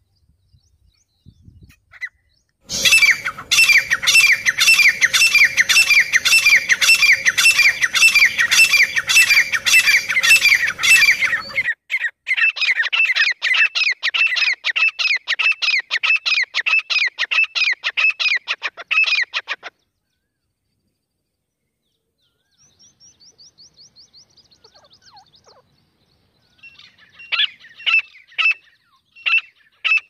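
Grey francolin calling: a long, fast, evenly paced run of short falling notes, then a somewhat fainter run that stops abruptly. After a pause come a faint quick series and a few separate, louder calls near the end.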